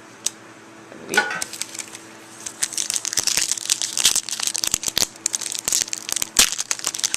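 Foil trading-card booster pack wrapper being handled and torn open. After a quiet start with a single click, a dense run of sharp crinkling and crackling sets in about two and a half seconds in.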